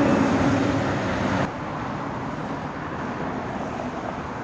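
Steady road traffic noise, with a passing vehicle's engine hum in the first second and a half; the sound then drops abruptly to a quieter, steady traffic rush.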